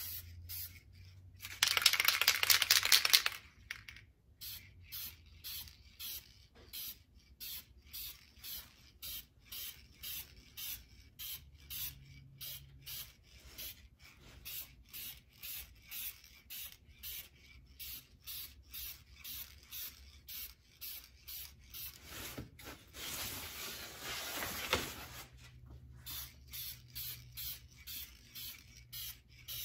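Aerosol can of carbon flash metallic black spray paint spraying. A long hiss comes about two seconds in and another about three-quarters of the way through, with short quick squirts between and after them, about two or three a second.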